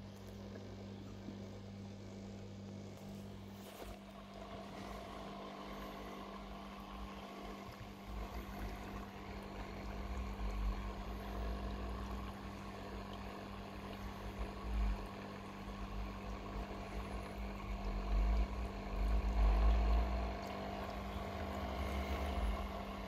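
Steady low hum of an aquarium pump, with a low rumble that swells and fades from about eight seconds in, loudest near the end.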